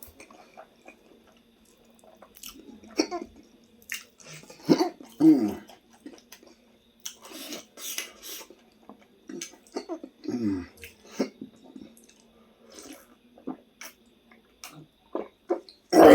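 Close-miked eating sounds: wet chewing, lip-smacking and slurping in short, irregular bursts with small clicks between them.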